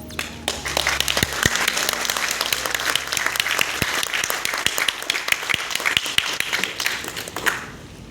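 Audience applauding: many people clapping together for about seven seconds before it dies away.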